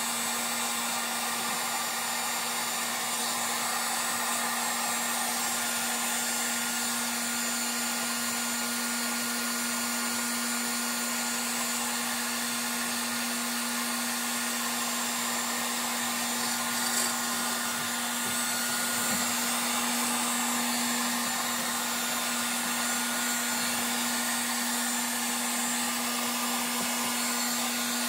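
Electric heat gun running steadily, blowing hot air to shrink heat-shrink tubing onto motor lead wires: a constant rush of air over a steady low hum.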